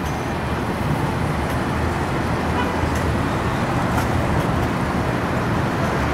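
City street ambience: steady traffic noise from passing road vehicles.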